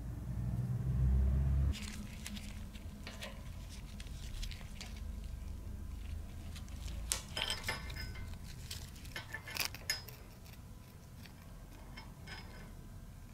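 Small metal clinks and taps from the greasy steel front wheel hub of a 1965 Velosolex and its axle nut and washers being handled and taken apart on a metal workbench. A low rumble of handling comes first, and the clinks come in clusters in the middle.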